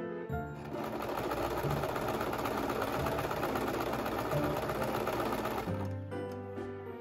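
Electric sewing machine running a seam in white satin, a fast, even stitching run that starts just after the beginning and stops about a second before the end, over light background music.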